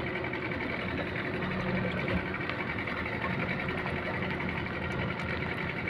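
Fishing boat's engine running steadily with an even mechanical whir.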